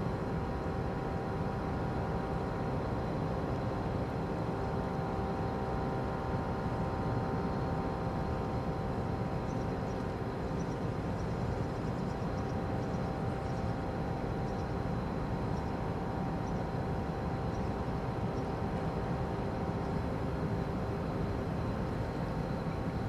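Steady machinery drone of a large ro-ro car carrier under way: several unchanging hums over a low rumble.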